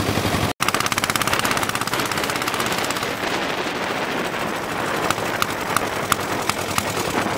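Lombardini 325 cc single-cylinder diesel engine in a converted Royal Enfield Bullet motorcycle, running under way with rapid, even exhaust beats. The sound cuts out for an instant about half a second in.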